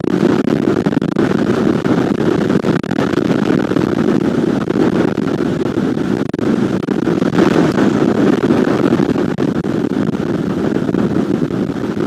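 Strong wind blowing over an outdoor camera microphone: a loud, steady, rumbling rush that wavers slightly in strength.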